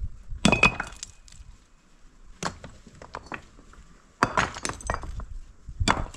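Rough stones clacking and knocking against one another as they are handled and set onto a stacked rock pile. The knocks come in short clusters: about half a second in, at about two and a half seconds, a run of knocks between four and five seconds, and again near the end.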